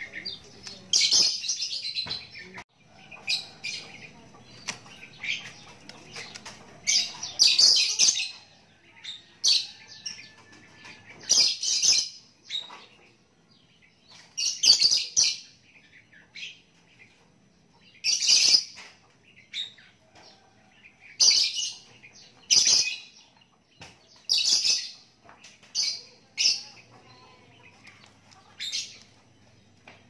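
Young Javan myna giving short, harsh, rasping calls, about a dozen of them, coming every one to three seconds.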